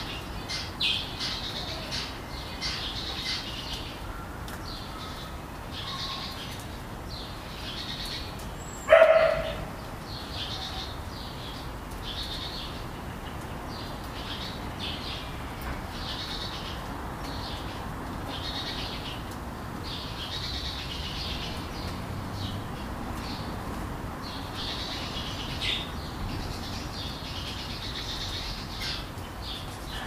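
Parakeets chirping and chattering in short high bursts throughout, with a single loud dog bark about nine seconds in.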